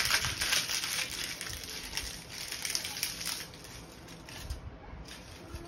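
Dry leaf litter crumbled between the hands: a dense crackling and crinkling, loudest at first and fading after about three and a half seconds.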